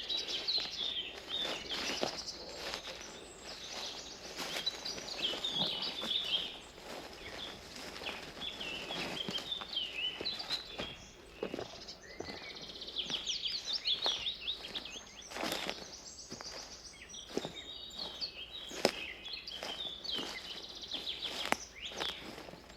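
Footsteps on a forest path, a step about every second, under several birds singing in quick chirping phrases all through.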